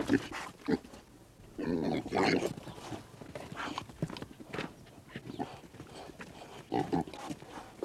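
A pig grunting and oinking in short, irregular bursts, the loudest about two seconds in and again near the end.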